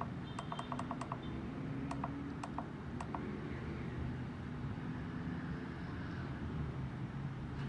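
Buttons on a solder pot's temperature controller being pressed to set the temperature: a quick run of about seven short clicking beeps in the first second, then a few single ones around two and three seconds in, over a low steady hum.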